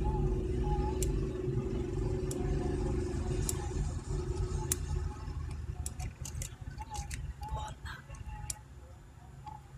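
Scattered light clicks and taps of small metal tools on a mobile phone circuit board during soldering, over a steady low background rumble. The clicks come more often in the second half.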